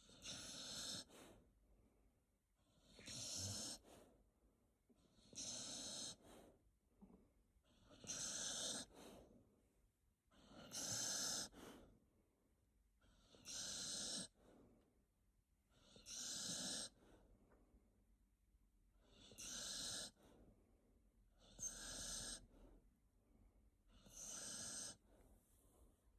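Snoring in sleep: about ten even snores, one every two and a half seconds or so, each lasting about a second.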